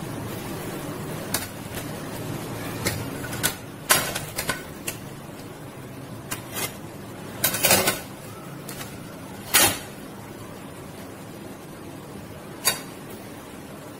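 Scattered sharp knocks and clinks of steel kitchenware as boiled chicken leg pieces are set down on a stainless steel plate, about nine in all, the loudest near the middle.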